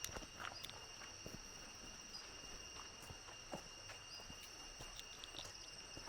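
Steady high-pitched insect drone at two pitches from the forest, with scattered footsteps on the trail.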